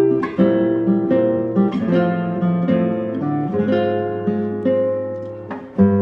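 Background music: an acoustic guitar picking a melody of plucked notes over held bass notes.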